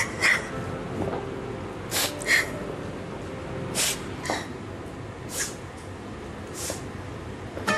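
A woman crying, sniffling sharply through her nose about seven times at irregular gaps of a second or so.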